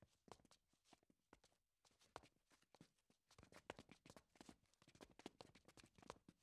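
Faint, irregular footsteps and light knocks on a wooden parquet floor, several a second, a little busier in the second half.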